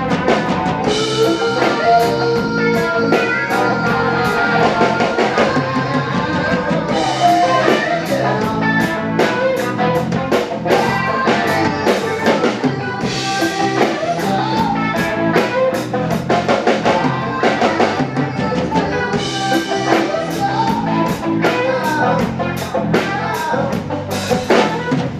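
Live rock band playing: electric guitar, bass guitar and a drum kit keeping a steady beat.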